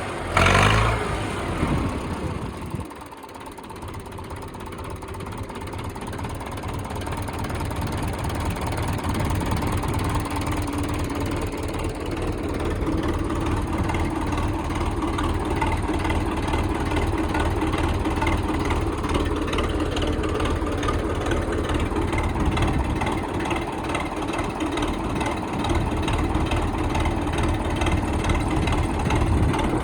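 YuMZ tractor's four-cylinder diesel engine running after a cylinder head rebuild with new valves and recut valve seats. Its revs fall away about a second in, then it settles into a steady run that grows slowly louder over the next ten seconds and then holds.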